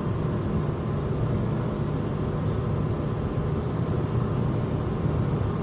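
Steady engine and tyre-on-road noise of a car driving along, heard inside the cabin as a low, even rumble.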